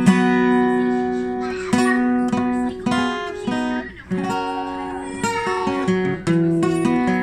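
Acoustic guitar strummed, playing a country-style chord progression with the chords left ringing, and a short break about four seconds in.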